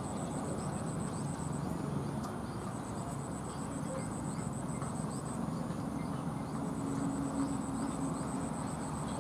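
Outdoor background noise: a steady low rumble, with a faint, rapid, high-pitched pulsing that stops and starts a few times.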